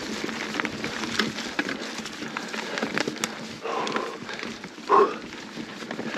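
Mountain bike moving off-trail through forest undergrowth: a steady crackle and click of twigs, roots and the bike rattling over them. The rider grunts with effort about four seconds in, and louder about five seconds in.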